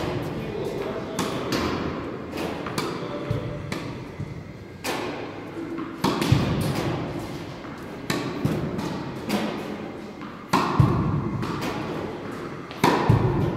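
Tennis balls struck by a racket and bouncing on a hard indoor court: sharp thuds every second or two, each ringing on in the large hall.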